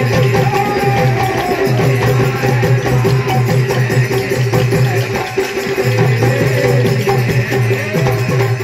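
Indian folk devotional bhajan music: a busy, even rhythm on drums and small percussion over a steady held tone.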